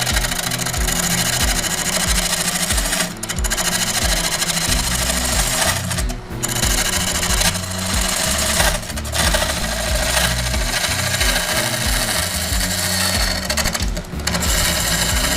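Lathe gouge cutting a spinning cherry burl and epoxy resin blank: a loud, rapid chattering cut that breaks off briefly a few times as the tool lifts away.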